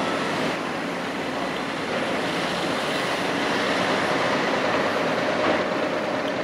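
Steady din of a construction site and road traffic, with a faint steady hum that comes in about three seconds in.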